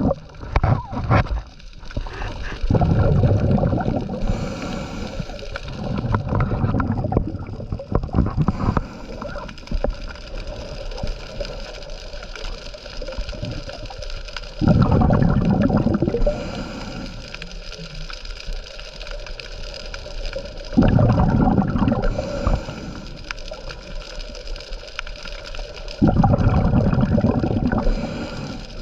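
Scuba diver breathing through a regulator underwater: exhaled air leaves in loud bubbling bursts four times, about every five or six seconds, with the quieter hiss of the regulator between breaths.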